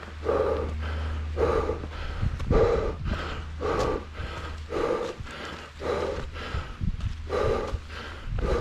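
A hiker breathing hard and rhythmically, about two heavy breaths a second, from the exertion of climbing a steep uphill trail. Footfalls on rock and dirt thump underneath, and a low rumble runs through the first half.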